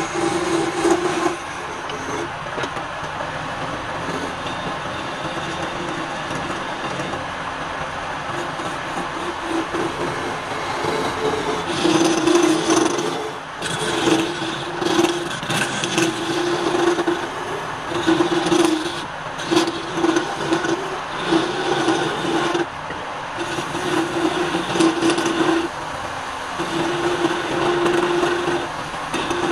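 Wood lathe running while a hand-held gouge cuts a spinning wooden spindle, peeling off curls of shavings. The cutting comes in short passes, each with a steady tone, more often from about halfway on.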